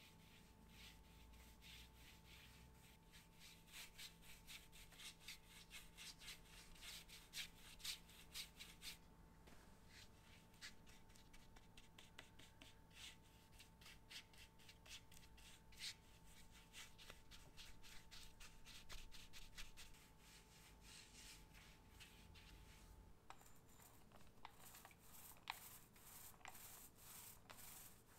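Faint, quick scratchy strokes of a paintbrush rubbing undercoat onto an MDF door frame, in irregular runs.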